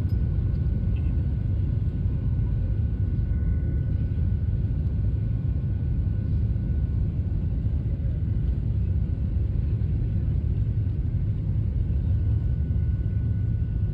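Jet airliner cabin noise on the ground: a steady low rumble from the under-wing turbofan engines and rolling wheels, with a faint steady whine above it.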